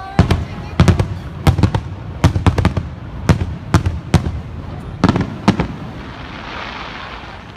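Aerial fireworks shells bursting in a rapid, uneven series of loud booms with echoing tails, some in quick pairs and triplets. The bangs stop about three-quarters of the way in, giving way to a softer hiss near the end.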